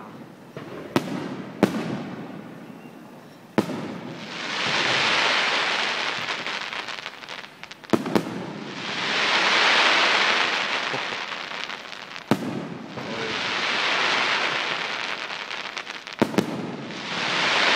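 Fireworks display: aerial shells bursting with sharp bangs every few seconds. From about four seconds in, each bang is followed by a loud hiss that swells and fades over about three seconds.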